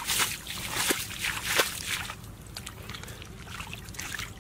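Wet mud and muddy water sloshing and squelching as bare feet churn through it: a quick string of wet splashes for about two seconds, then quieter, scattered squelches as hands work through the mud.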